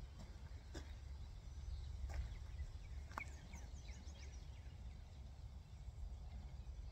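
Faint outdoor ambience: a low steady rumble of wind, with birds calling, including a quick run of short falling chirps about three and a half seconds in. A few sharp clicks stand out in the first three seconds.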